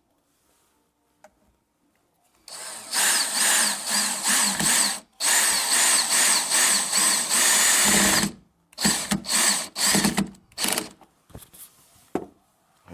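Power drill driving a screw: two long runs of the motor, then several short trigger bursts as the screw is run home.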